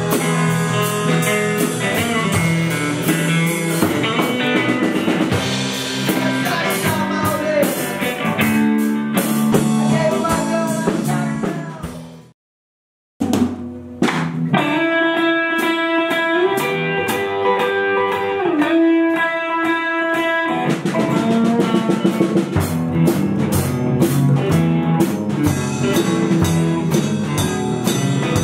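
Guitar and drum kit playing together in a jam, cymbals and drum hits under the guitar lines. About twelve seconds in the music fades and drops to a brief silence, then starts again with held guitar notes before the full band picks up once more.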